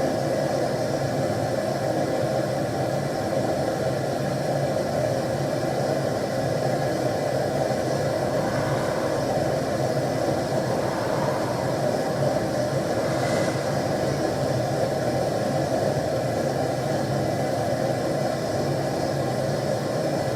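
Gas forge burner running with a steady roar of flame, heating strip steel for bending.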